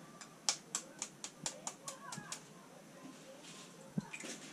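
A quick series of about nine light clicks, roughly four a second, from kitchen utensils and dishes being handled on the counter, then a single knock near the end.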